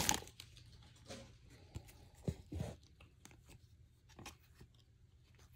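Faint rustles and soft taps of trading cards being slid out of a torn foil pack and handled, a few short sounds with the loudest pair about two and a half seconds in, over a low steady hum.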